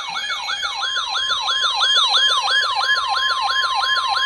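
Weather radio alert alarm: a siren-like yelp sweeping up and down about four times a second, joined about a second in by the steady NOAA Weather Radio warning tone. It marks the start of a new warning.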